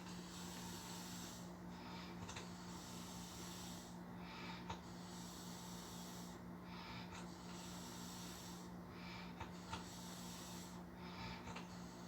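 A man snoring in his sleep after drinking, a rasping breath that repeats about every two and a half seconds, five times over, with a steady low hum underneath.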